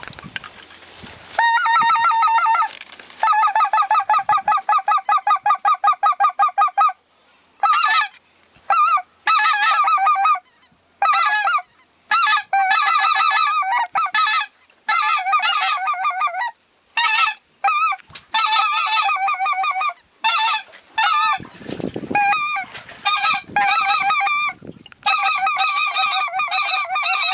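Specklebelly (greater white-fronted) goose call blown hard and close, a high yelping yodel of rapid wavering notes. It begins about a second and a half in, runs in long strings for the first few seconds, then comes in quick bursts of about a second with short breaks.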